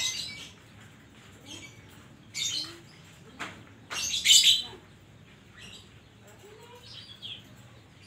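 Oriental magpie-robin (kacer) singing in short, separate bursts of varied chattering and whistled phrases, the loudest about four seconds in and a falling whistle near the end.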